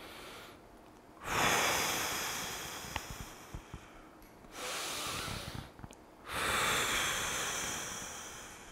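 A man's slow, deep breathing: three long breaths, each trailing off. It is the controlled recovery breathing after holding a long note on the saxophone, in through the nose and out through the mouth.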